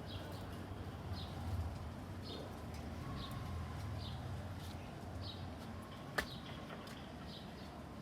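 Short high chirps repeating about every two-thirds of a second over a low rumble, with one sharp click about six seconds in.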